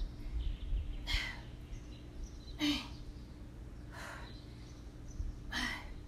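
A woman breathing hard during push-ups: four sharp breaths about a second and a half apart, over a faint steady hum.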